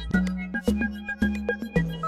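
Background music with a steady beat of about two a second, a low bass note on each beat and short plucked melody notes above it.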